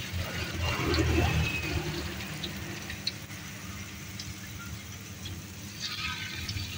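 Peanut rempeyek batter sizzling and bubbling in a wok of hot oil: a steady frying hiss with scattered small pops, over a low steady hum.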